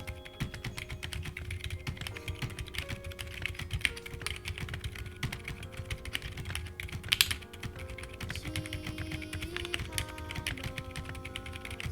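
Continuous fast typing on a mechanical keyboard: a dense, irregular stream of key clicks, several a second, over background music with held notes.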